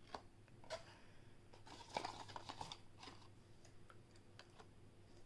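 Faint, scattered light clicks and taps of plastic cosmetic containers being handled, set down and picked up, with a small cluster of knocks about two seconds in.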